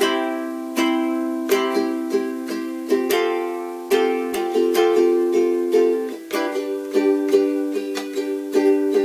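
A Cordoba ukulele strummed in a steady rhythm, each strum ringing out as a full chord, with a brief dip about six seconds in before the strumming picks up again.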